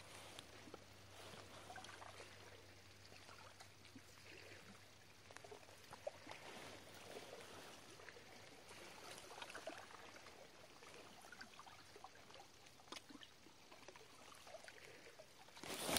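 Faint lapping and trickling of calm seawater against shoreline rocks, with a few small ticks.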